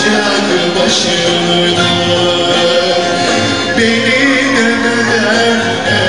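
A male singer draws out long, wavering notes of a Turkish folk song over a live band with guitars. The music stays loud throughout, and the notes change about two seconds in and again about four seconds in.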